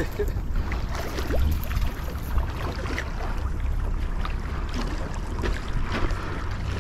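Wind rumbling on the camera microphone, with faint scattered ticks and splashes as a hooked striped bass thrashes at the surface in the shallows.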